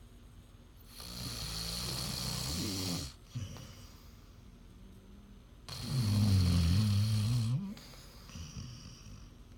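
Snoring in a sleeper's slow breathing: two long, low-pitched snores about five seconds apart, the second louder than the first.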